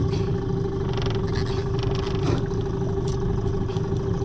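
Boat engine running steadily at low speed: an even drone with a constant hum, with a few faint clicks of handling on top.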